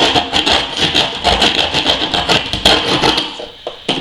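Hand grout saw scraping back and forth in the grout joint around a bathtub, a rapid rasping that stops about three seconds in.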